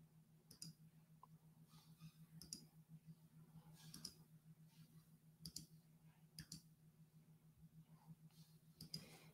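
Faint, scattered clicks from a computer mouse and keyboard being operated, over a steady low hum.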